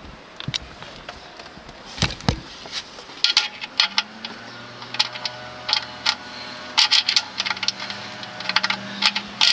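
Metal sockets and tools clinking and rattling as they are handled and sorted, in a string of sharp clinks that come thicker from about three seconds in. A low steady hum starts about four seconds in.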